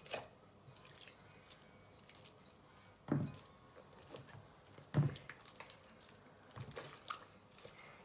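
Sticky pink glue slime being squeezed and kneaded by hand in a plastic bowl, with small wet squelches and clicks throughout and two louder moments about three and five seconds in. The slime is not yet fully activated and is still sticking to the hands.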